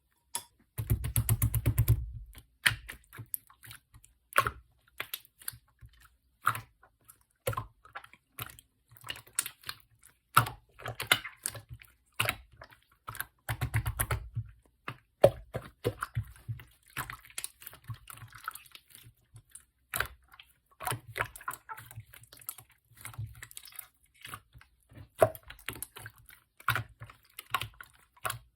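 Slime being kneaded and stretched by hand: irregular clicks, crackles and sticky squishes with no steady rhythm, a few louder squelches in between.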